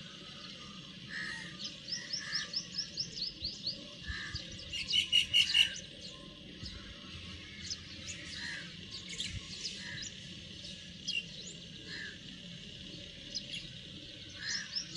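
Small birds chirping and calling, with a rapid run of short slurred notes about two seconds in and the loudest burst of chirps around five seconds in, over a steady high hiss.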